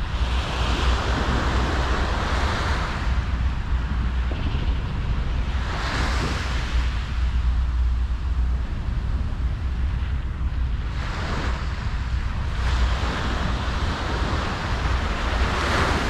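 Ocean waves breaking on the beach and washing up the shore, a new surge about every five seconds, over a steady low rumble of wind on the microphone.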